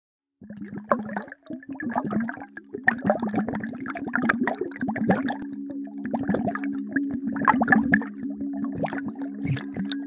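Underwater bubbling picked up by a homemade hydrophone: a dense, irregular run of bubble pops and gurgles over a steady low hum.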